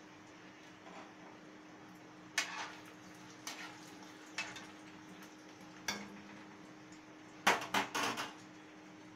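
Metal slotted ladle clinking and scraping against a metal kadhai a few times while turning koftas frying in oil, then a quick run of louder clatters near the end as the ladle is laid on the stove top.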